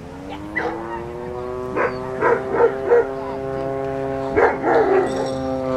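Dog barking in short quick runs of sharp barks, from excitement in the handler's view, over a steady held tone that stays on one pitch.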